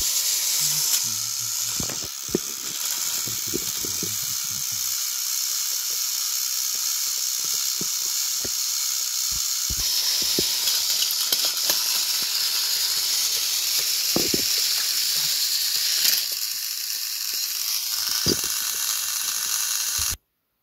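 Battery-powered toy train engines running on plastic track: a steady high whirring hiss of their motors and spinning wheels, with scattered plastic clicks and knocks as the engines push and jostle. The sound cuts off suddenly near the end.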